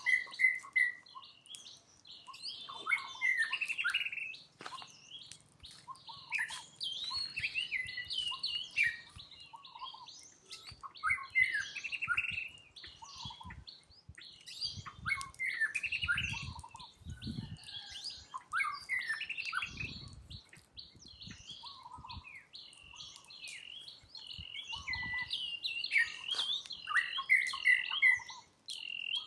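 Many birds chirping and calling at once, a steady stream of short high chirps, with a few dull low thuds in the middle.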